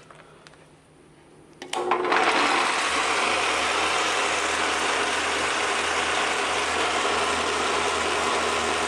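Vintage Craftsman table saw switched on with a click about two seconds in. The motor spins up quickly and the saw then runs steadily with no cutting.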